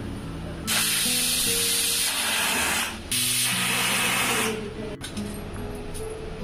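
Aluminium pressure cooker on a gas burner venting steam in two loud hissing bursts, each around one and a half to two seconds long with a brief break between them: the cooker has come up to pressure.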